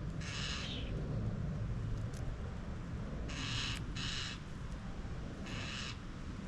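Harsh, rasping begging screeches of fledgling common starlings, four calls of about half a second each: one near the start, two close together in the middle and one near the end. A steady low rumble runs underneath.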